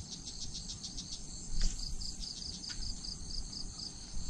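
Insect chirping steadily in a fast, even rhythm of high chirps, about five a second.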